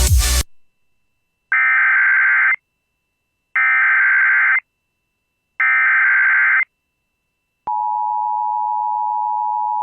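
Emergency Alert System header: after a brief burst of noise at the start, three one-second bursts of warbling data tones sound about two seconds apart, then the steady two-tone attention signal begins about three-quarters of the way through, announcing a new alert (a tornado warning).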